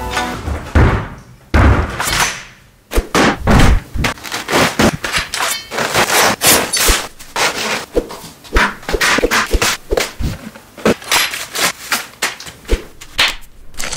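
A rapid, uneven series of knocks and thuds, several a second, with a short lull about three seconds in.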